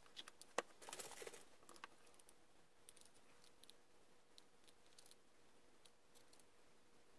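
Quiet handling of small parts: light clicks and rattles as a small metal and plastic bracket with wires is picked up and turned over, busiest in the first two seconds, then only a few faint ticks over a faint steady hum.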